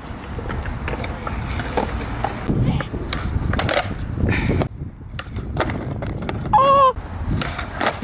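Skateboard popping and slapping down on concrete, with the wheels rolling, in repeated nollie late kickflip attempts; one try ends with the board landing upside down. Wind buffets the microphone throughout. Near the end there is a short high vocal cry.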